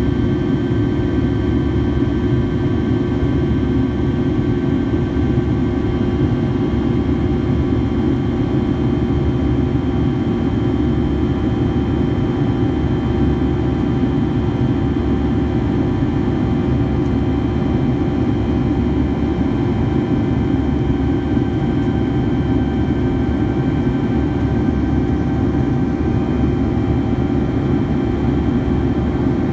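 Steady cabin noise of a Boeing 757-200 in flight, heard from a window seat over the wing: a deep, even rush of jet engine and airflow with a faint steady whine of several tones above it.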